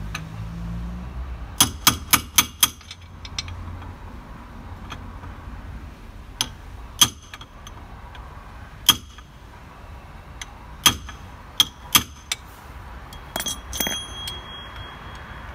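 Hammer striking metal at a Fiat 128's front wheel hub as the hub nut is secured. That nut was loose and gave the wheel its play. A quick run of about five taps comes about two seconds in, then single taps every second or two, and a last cluster near the end with a brief metallic ring.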